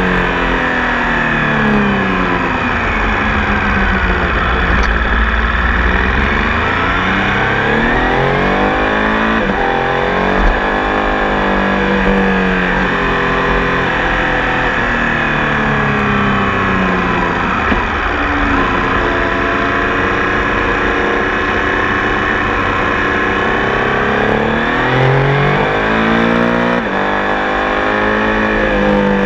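Triumph Tiger Sport 800 motorcycle's three-cylinder engine running under way. Its pitch rises and falls over and over as it accelerates and slows.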